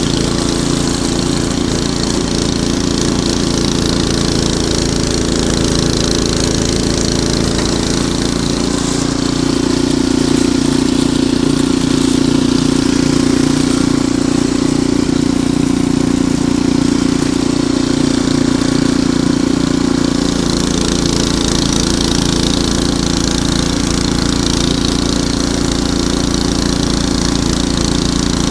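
Ariens Deluxe 28 snowblower's engine running steadily; about a third of the way in it speeds up and gets louder for around ten seconds, then settles back to its earlier pace.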